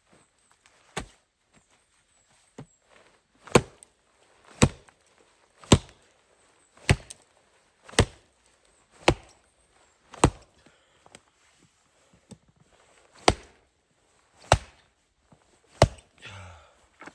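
Wood being chopped: a steady run of sharp blows, about one a second, with a brief pause partway through.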